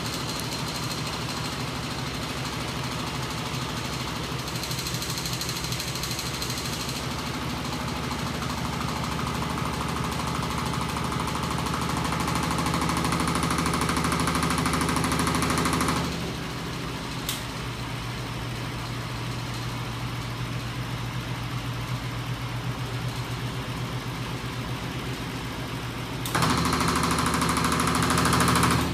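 Homemade battery- and electric-motor-driven magnet engine rig, its flywheels and linkage running with a steady rapid mechanical clatter and hum. It grows louder toward about 16 s, drops suddenly there, then jumps louder again about two seconds before the end as its speed control is turned.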